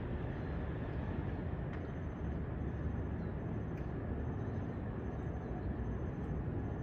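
Steady low rumble of outdoor urban background noise, with a few faint ticks.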